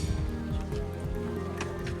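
Music with sustained, held tones.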